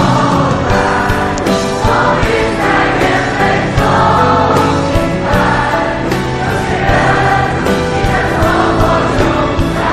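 Background music with choir-like singing over a steady beat.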